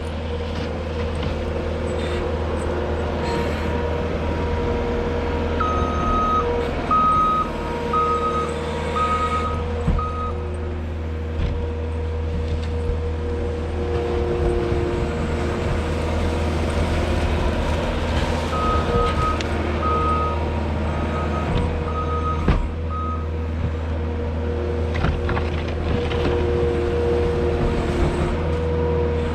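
New Holland L220 skid steer's diesel engine running steadily while it works, with its backup alarm beeping in two spells as the machine reverses.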